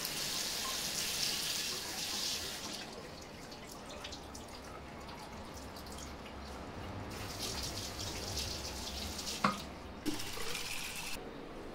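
Tap water running into a bathroom sink and splashing over bamboo cuttings as they are rinsed. The flow stops and starts a few times, and there is a single sharp knock about nine and a half seconds in.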